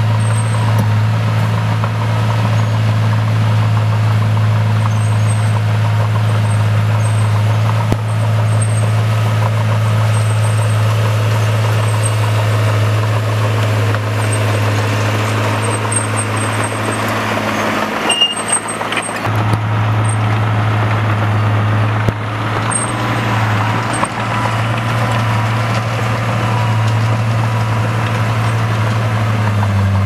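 Crawler bulldozer's diesel engine running steadily as the dozer pushes earth, a loud low drone that breaks off briefly about eighteen seconds in.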